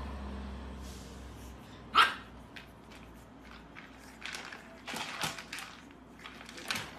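A pug puppy gives one short, sharp bark about two seconds in. It then scratches and digs in a plastic litter box of pellet litter, the pellets rattling and scraping in quick bursts near the end.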